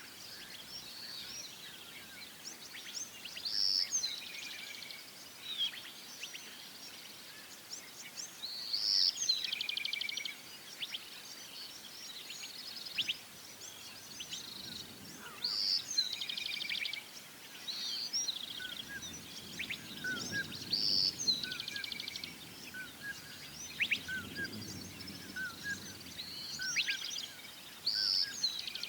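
A songbird sings the same short phrase over and over, about every two to three seconds: a bright note followed by a quick trill. Softer short chirps from other birds come between the phrases, and a faint low rumble joins in over the second half.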